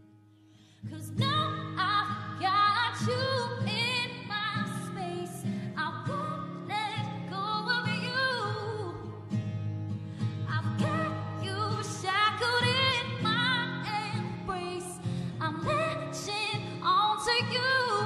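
A song with a high, wavering singing voice over a steady low accompaniment. It comes in loudly about a second in, after a quiet pause.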